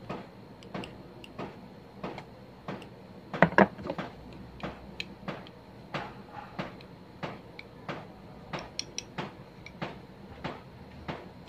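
Irregular clicks and taps of a thin tool and fingers working at the plastic cap of a bottle, with a louder cluster of knocks about three and a half seconds in.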